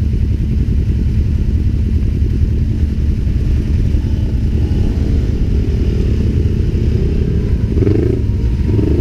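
UTV engine running steadily while the vehicle is driven, a constant low drone.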